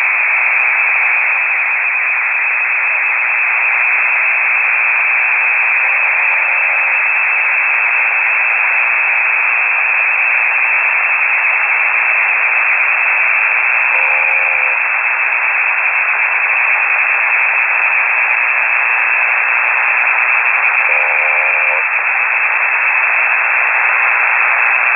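Loud, steady hiss of shortwave band noise heard through a single-sideband radio receiver's narrow audio passband, with no station talking. Faint, short pitched sounds break through about every seven seconds.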